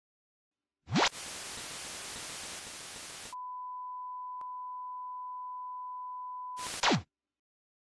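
Intro sound effect: a quick upward sweep, then about two seconds of hissing static, then a steady high beep tone for about three seconds. It ends with a short burst of static and a quick downward sweep.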